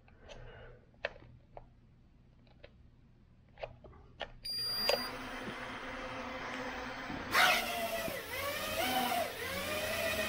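FUNSKY Heliway 913 quadcopter's brushless motors starting and lifting off, very quiet. A few clicks come first as the controller sticks are worked. About four and a half seconds in there is a short beep, then a soft propeller whir that grows louder about seven seconds in as the drone takes off, its pitch rising and dipping.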